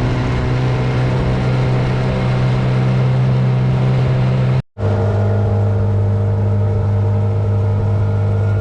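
Outboard motor of a small aluminium boat running steadily at cruising speed, with water and wind rush. It breaks off briefly about halfway, then carries on slightly lower in pitch.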